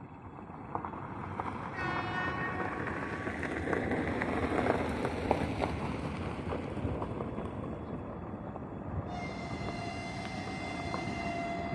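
Horn of an approaching 3ES5K 'Ermak' electric locomotive: a short blast about two seconds in, then a long steady blast from about nine seconds in that is still sounding at the end, over a rising rushing noise.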